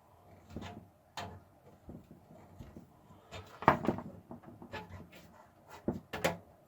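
Scattered clicks, knocks and scrapes of a tool worked by hand at the mounting holes of a computer case, hogging the holes out so the motherboard will fit. The loudest knocks come a little before four seconds in and again around six seconds.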